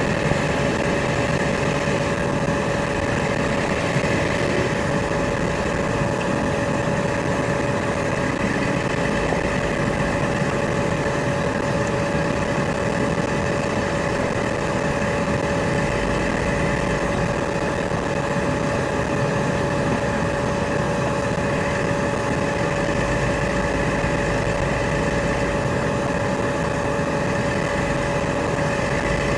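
Cat 335 excavator's diesel engine running steadily, with a constant thin tone above it.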